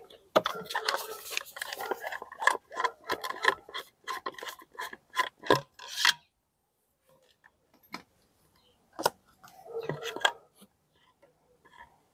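Containers being handled: a quick run of clicks, knocks and scrapes for about six seconds, then a few single clicks and a short rattle near the end.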